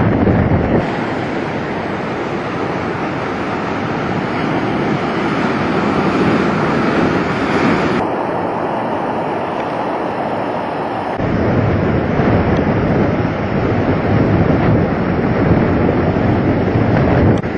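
Strong wind blowing across the microphone with the rush of storm waves breaking, in several shots cut together. About eleven seconds in, the low wind buffeting on the microphone grows heavier.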